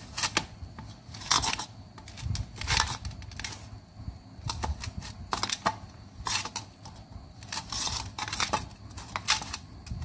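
A hand tossing and squeezing shredded bamboo mushrooms with spice powder in a stainless steel bowl: irregular rustling and scraping strokes against the steel, about one or two a second.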